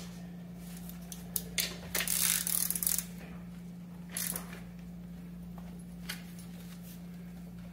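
Socket wrench clicking and metal clinking in short bursts as the rear shock mounting bolt of an electric scooter is torqued down, the longest run of clicks about two seconds in.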